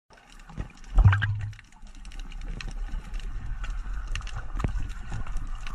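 Underwater sound: a gurgling burst of released air bubbles about a second in, then a steady crackle of many small clicks over a low rumble.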